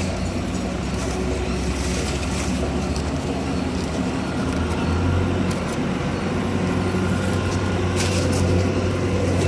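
Small round baler with a force-feeding unit running steadily, driven by an engine whose low drone steps up slightly about halfway through, with a sharp click about eight seconds in.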